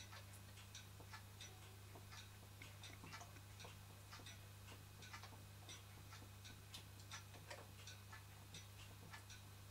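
Märklin toy steam donkey engine with a single-acting cylinder running faintly, giving a light, slightly irregular ticking at about three a second over a steady low hum. Its worn piston is packed with graphite yarn, and it runs, though not brilliantly.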